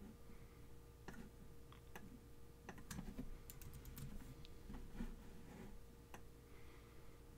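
Faint clicking of a computer keyboard and mouse, scattered single clicks with a quick run of them a little before the middle.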